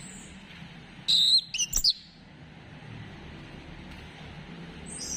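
Chestnut-capped thrush (anis kembang) song: one loud, quick burst of high, warbling notes about a second in, lasting under a second, then a faint high note near the end.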